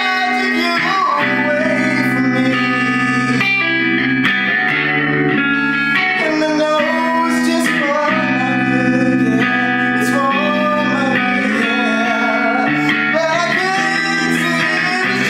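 A man singing a soul/R&B song live while accompanying himself on electric guitar, the guitar holding sustained chords under a voice that slides and bends between notes.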